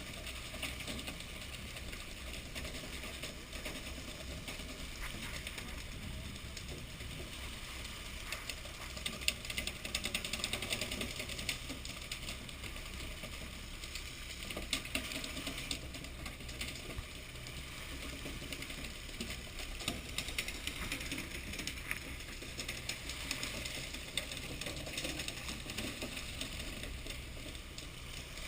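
A fishing boat's engine running steadily, with a rapid clatter of clicks and ticks over it, busiest about a third of the way in.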